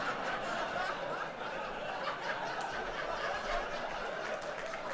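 A large theatre audience laughing together at a punchline, a steady wash of many voices.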